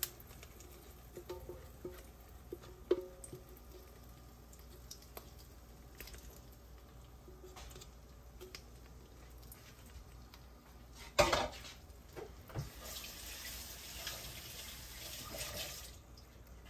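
Oil frying faintly in a pan, with a few light utensil clicks; about eleven seconds in, a sudden loud splash and sizzle, then a few seconds of stronger hissing as beaten egg yolk goes into the hot oil.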